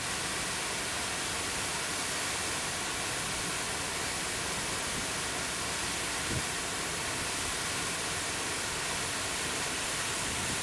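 Steady rush of water pouring over a river weir and churning white in the pool below, the river running fast after overnight rain.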